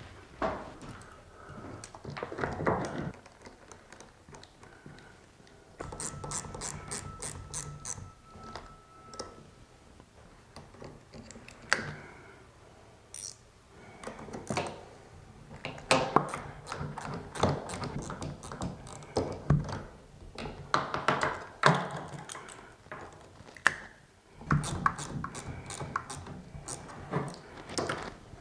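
Hand tools on the threaded cable adjustment shafts and jam nuts of a BAL Accu-Slide slide-out mechanism: a wrench and locking pliers clicking and knocking against the metal. Three runs of quick clicks, about four or five a second, come with scattered knocks and scrapes between them as the cables are tightened.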